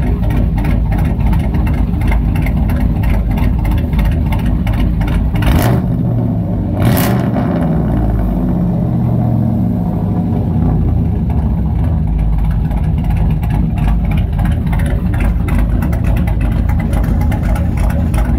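6.0-litre gasoline V8 of a 2006 Chevrolet Silverado 2500, fitted with a big-lift performance cam and straight-piped from the exhaust manifolds, running at idle with a heavy, uneven cam chop. About seven seconds in, it gets a short rev that rises and falls back to the choppy idle.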